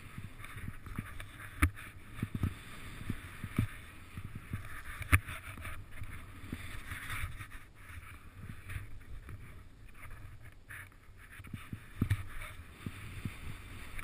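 Skis hissing through powder snow on a fast descent, with wind rumbling on the microphone and irregular low thumps. A few sharp knocks stand out, the loudest about five seconds in.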